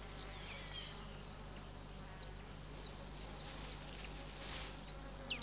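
Steady, high-pitched insect chorus trilling with a fast, even pulse, with a few faint short chirps over it and a brief click about four seconds in.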